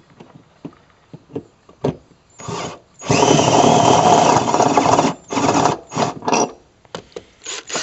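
Power drill with a step drill bit enlarging a pilot hole in a vehicle firewall: a few light clicks, a short burst, then about two seconds of steady drilling with a high motor whine, followed by several shorter bursts.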